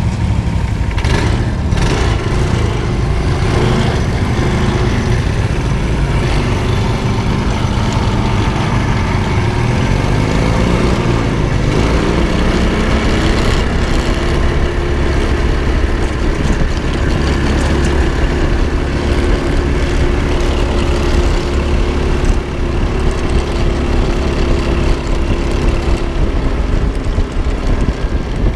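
Honda GX200 single-cylinder engine in a Baja Reaction running under load, its pitch rising and falling with the throttle around the middle, then holding steady for several seconds.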